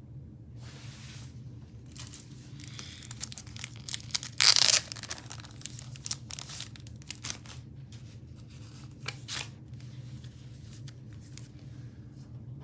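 Paper or packaging being handled: crinkling and rustling with scattered clicks, and one loud tear about four and a half seconds in.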